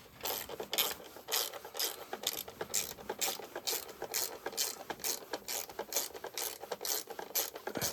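Socket ratchet wrench clicking in short, even strokes, about two a second, as bolts are driven back in.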